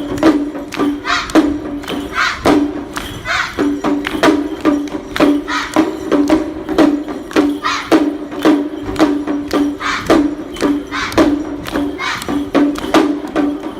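Percussion-led music for a Japanese shishimai lion dance: quick, even strikes in a steady beat over a held steady tone.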